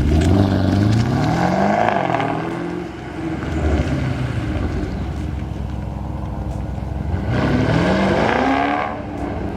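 Porsche Panamera Turbo's twin-turbo V8, fitted with a full aftermarket exhaust, high-flow cats and a tune, revving up hard with the pitch rising at the start, settling, then rising again about seven seconds in as the car pulls away.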